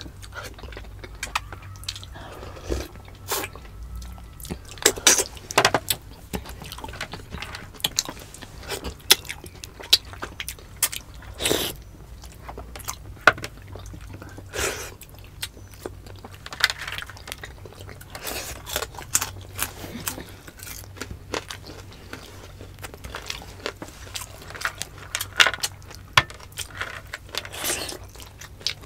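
Close-miked eating: two people chewing and biting into stewed meat by hand, with many irregular sharp clicks and wet mouth smacks.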